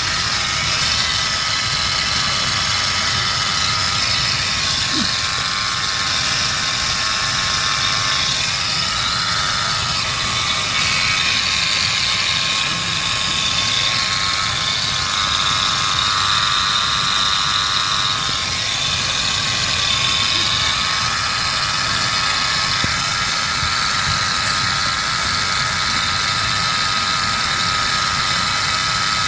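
Ford F-150 5.0 L V8 engine running steadily at idle with a grinding noise from the engine area, a high tone wavering in strength over the engine sound.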